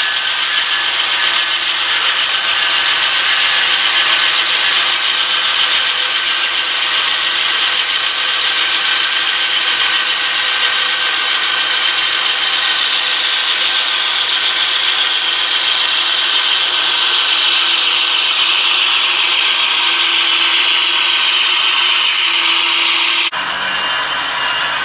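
HO scale model train running past: a steady mechanical whir and rolling rattle from the locomotives' motors and gears and the wheels on the rails, its pitch slowly falling in the second half. The sound changes abruptly near the end.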